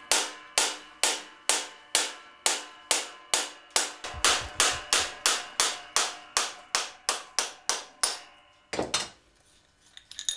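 A hammer strikes the end of a VéloSolex engine's crankshaft in a steady run of about twenty ringing metal blows, about two and a half a second and quickening slightly, tapping the shaft out of its bearing in the crankcase. The blows stop about eight seconds in, and a brief noise of a different kind follows.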